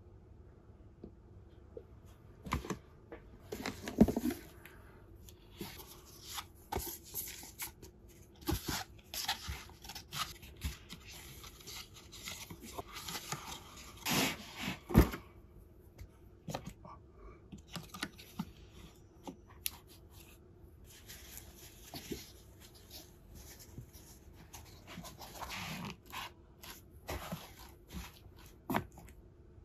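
Gloved hands handling a cardboard gift box and its packaging: paper and fabric rustling and scraping, broken by short knocks, the sharpest about four seconds in and again near fifteen seconds.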